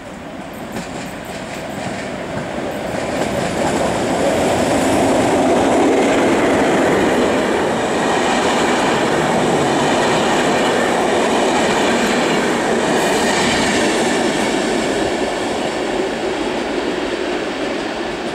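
PKP Class EP07 electric locomotive and its passenger coaches passing on the rails: the running noise of wheels and coaches grows louder over about five seconds, holds while the coaches go by, then slowly fades as the train moves away.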